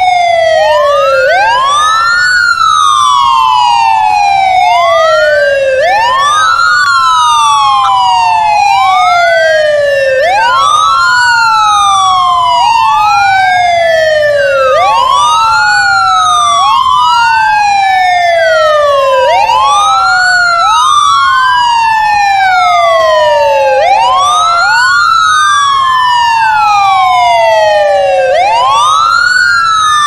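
Ambulance siren on a wail: a slow falling glide followed by a quick rise, repeating about every four and a half seconds, with a second wail overlapping out of step.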